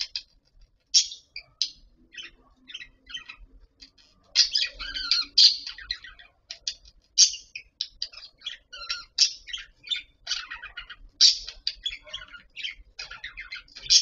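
Budgerigars chattering: a run of short, scratchy chirps and warbles, busiest about four seconds in and again in the latter half.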